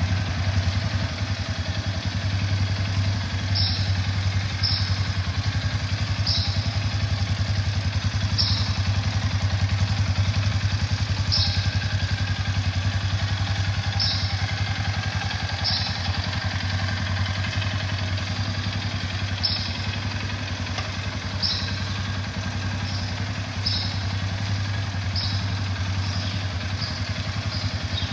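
2018 Arctic Cat Alterra 500 ATV engine idling steadily, with no revving. Short high ticks sound every second or two over the idle.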